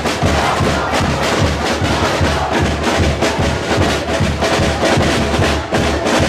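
Drums and other percussion beating a fast, steady rhythm, with crowd noise underneath.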